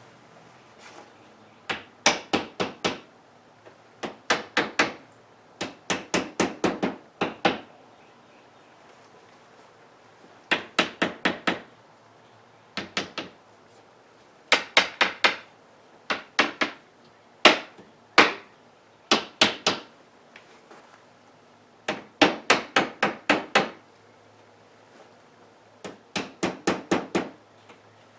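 A hammer tapping on a wooden picture frame in quick runs of three to six sharp taps, about five a second, with short pauses between the runs.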